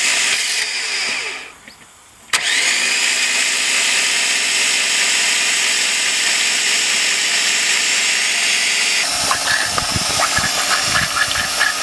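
An electric power tool's motor runs steadily, cuts out about a second in, then spins back up with a brief rising whine and runs on. Near the end the sound turns rougher and lower.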